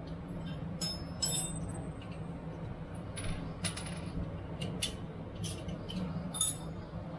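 Scattered light metallic clinks and taps of tools and loose metal parts being handled, over a steady low hum.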